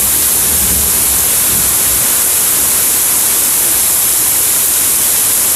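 Heavy rain pouring down in a thunderstorm: a loud, steady hiss of falling water.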